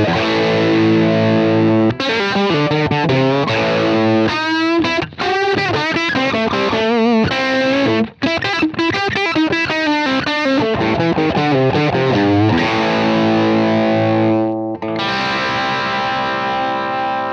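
Electric guitar played through a UAFX Lion '68 Super Lead amp-emulator pedal set for Plexi-style overdrive, with chords and lead lines shaken with wide vibrato and bends in the middle. Near the end, a fresh chord is struck and left to ring.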